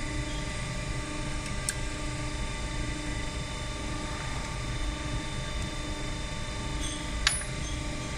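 Steady hum of running machinery with several held tones, and one sharp click about seven seconds in.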